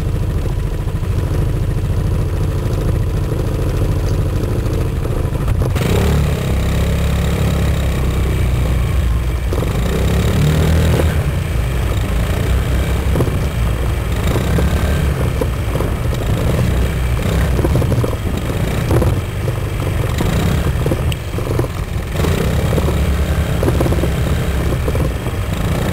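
Gilera Nexus scooter running, with strange noises from around the back wheel. The sound gets louder and busier about six seconds in, and rises and falls unevenly after that.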